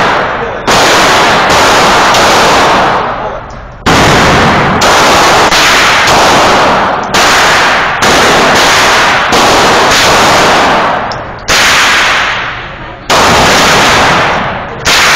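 Firearm shots fired in steady succession, about one every three-quarters of a second, in runs of several shots with brief pauses between them, each shot very loud with a short ringing decay.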